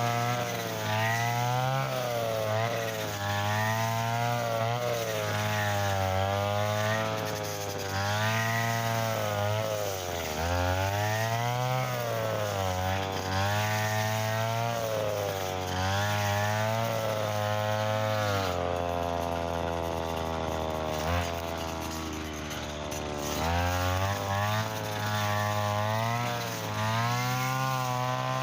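Mitsuyama brush cutter engine running hard while cutting thick, stiff field grass with 2.4 mm nylon line. The engine speed rises and falls every second or two as the line bites into the grass. It holds steadier for a few seconds past the middle.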